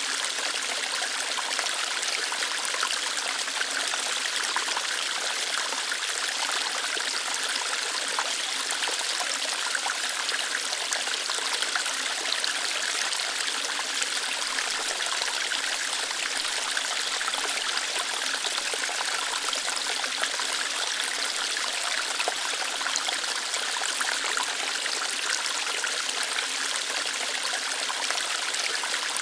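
A small waterfall of water flowing lightly over rocks, a steady, even splashing and trickling rush with no breaks.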